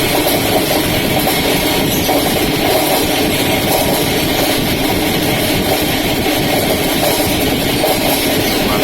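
Spinner (centrifugal draining machine) running steadily, its motor spinning the basket of product to drain and dry it.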